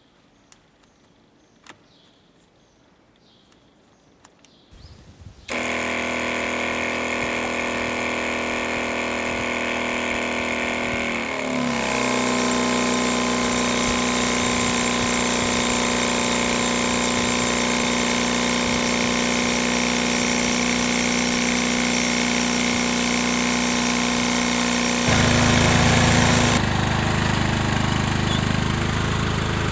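A few faint clicks, then the trailer sprayer's 12 V electric pump switches on about five seconds in and runs steadily, its tone dropping slightly about eleven seconds in. Near the end it gives way to an ATV engine running as it tows the sprayer.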